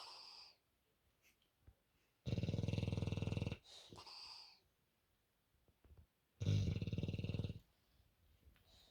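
Bulldog snoring in its sleep: two loud buzzy snores, about a second into each other's rhythm roughly four seconds apart, each lasting just over a second, with a quieter wheezy out-breath with a faint whistle between them.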